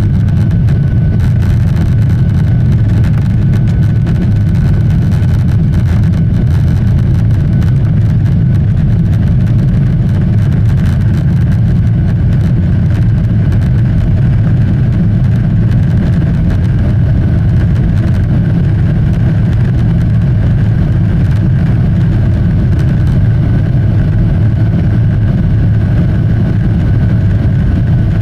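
Airliner jet engines and airframe heard from inside the passenger cabin: a loud, steady, unbroken low rumble with a faint steady whine above it.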